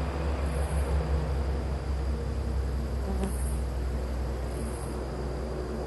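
Steady outdoor background: a constant low rumble with insects chirping high-pitched every second or two.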